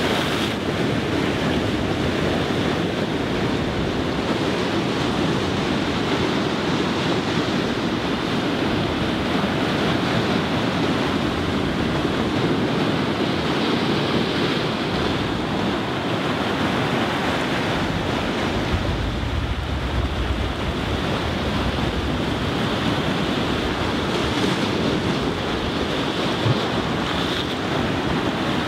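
Ocean surf breaking and washing over a rocky shore as a steady rush, with wind rumbling on the microphone, strongest about two-thirds of the way through.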